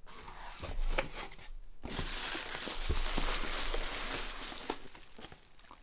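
Cardboard box flaps being pushed open with a few knocks, then plastic bubble wrap crinkling and rustling for about three seconds as hands dig a packed box out of it, fading near the end.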